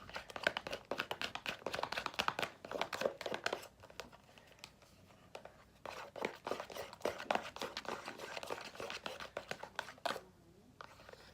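Fluffy slime being mixed, giving off a dense run of quick crackles and sticky pops, in two spells with a short pause around the middle.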